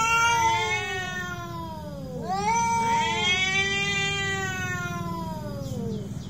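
Cats yowling at each other in a fight standoff: two long, wavering yowls, each rising quickly and then sliding slowly down in pitch, the second starting about two seconds in as the first fades.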